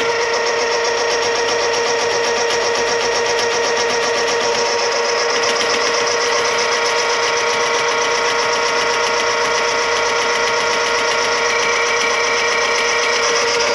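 A small electric motor running steadily with a fast, even whir and a steady whine, switched off at the end.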